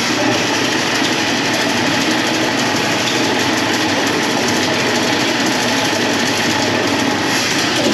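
Machinery running steadily and loudly, with a fast, even rattle.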